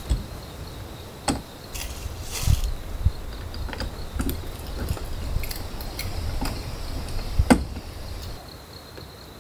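Camping gear being handled: scattered knocks and clicks, the loudest about two-thirds of the way through, over a steady high drone of insects such as crickets.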